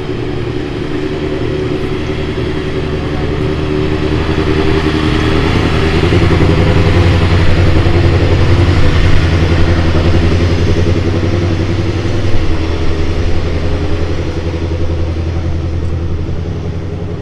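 Engine running steadily at one constant speed, growing louder through the middle seconds and then easing off, with a brief knock about twelve seconds in.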